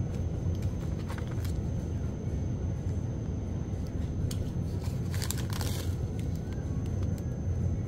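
Thin plastic sachets crinkling and rustling in the hands, with a few light crackles about a second in and a louder burst of crinkling a little past halfway, over a steady low rumble.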